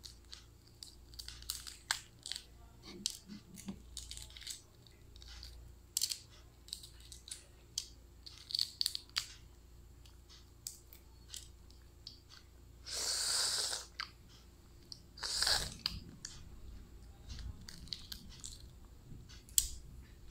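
Eggshell of a boiled balut (fertilised duck egg) cracking and being picked off with the fingertips: a string of small sharp crackles and clicks. Two louder, longer noisy sounds of about a second each come a little past the middle.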